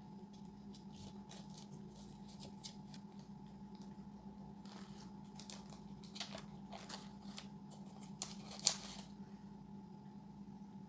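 A run of short, crisp clicks and snips, growing denser and louder in the second half with the sharpest one near the end, over a steady low hum.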